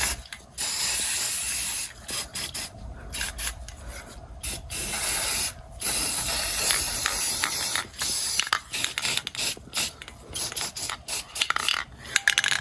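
Aerosol spray-paint can hissing in repeated bursts. The longer sprays give way to short, sputtering spurts near the end as the can runs nearly empty.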